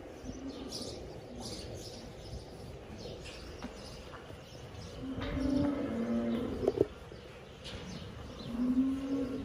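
Dairy cows mooing: one long moo from about five seconds in to nearly seven seconds, and a shorter one near the end. Small birds chirp now and then.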